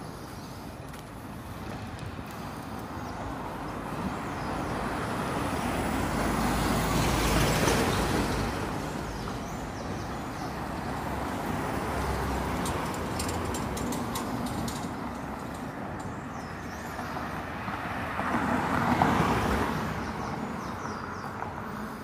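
Road traffic: cars passing on the street alongside, the noise swelling and fading twice, once about a third of the way in and again, a little louder, late on.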